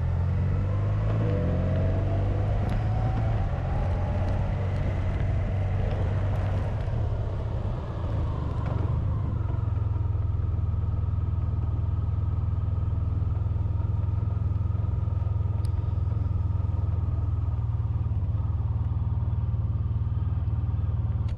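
Honda VFR1200X Crosstourer's V4 engine heard from the bike, rising in pitch as it accelerates over the first few seconds, then running at a steady cruise with a constant low rumble.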